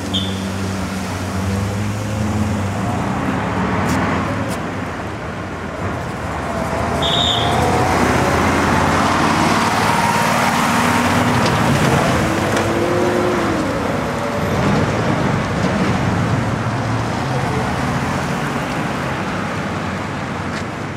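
Road traffic noise with a steady rush. It swells as a vehicle passes close by, loudest from about eight to thirteen seconds in.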